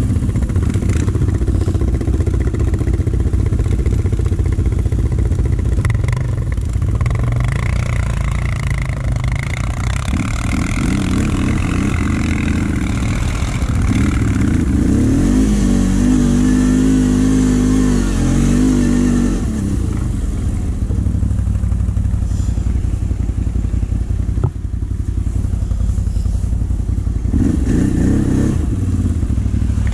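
CFMoto CForce 850 XC ATV's V-twin engine running under way, its pitch climbing and falling as the throttle is worked, with a strong, steady engine tone about halfway through. A single sharp click comes about two-thirds of the way in.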